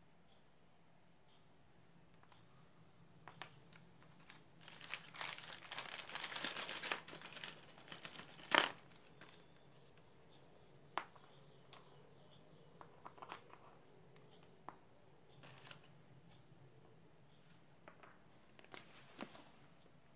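Plastic packaging crinkling and rustling for a few seconds, followed by a series of light clicks as small bronze and rubber bushings are set down one at a time on a hard floor.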